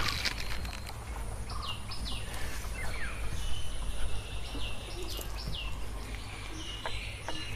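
Birds calling: a string of short, quickly falling chirps repeated every half second or so, with a few light clicks near the end.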